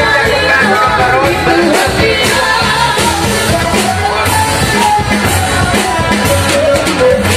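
Batak uning-uningan ensemble music playing, a wavering melodic lead over a steady beat.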